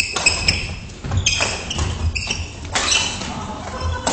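Badminton doubles rally: several sharp racket strikes on the shuttlecock, shoes squeaking and scuffing on the wooden court, and dull footfalls, in a large gym hall.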